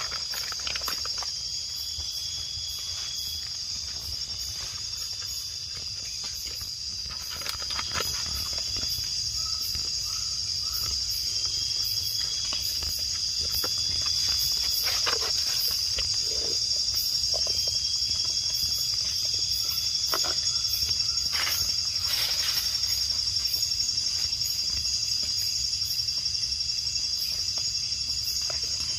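A continuous high-pitched chorus of night insects in the forest. A few scattered clicks and rustles come from hands working a manual cigarette-filling machine on a plastic tarp.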